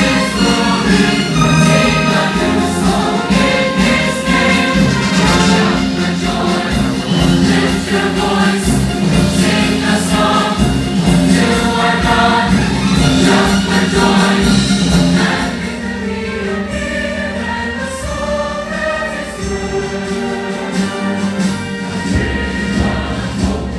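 Large choir singing with live orchestral accompaniment; the music grows softer about two-thirds of the way through.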